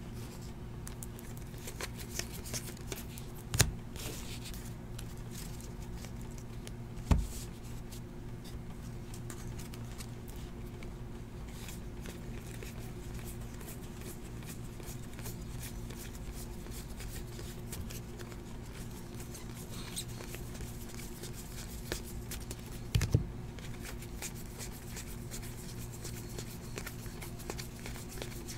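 Donruss basketball trading cards being flipped through by hand, the card stock sliding and flicking against itself. Three sharp thumps stand out, about 3½, 7 and 23 seconds in, over a steady low electrical hum.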